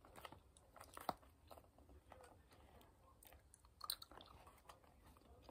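Near silence: faint room tone with scattered soft clicks and ticks, a little clearer about a second in and again around four seconds in.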